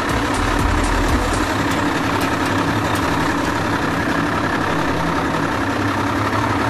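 Boat engine running steadily, with a continuous hum over water and wind noise.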